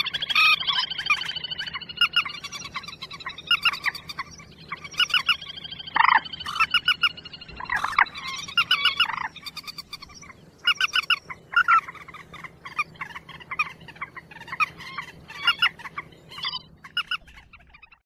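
Bird-lure recording of 'quốc biển' calls, as used by trappers to draw birds in. A long call falls in pitch over the first few seconds, followed by repeated bursts of rapid, stuttering calls.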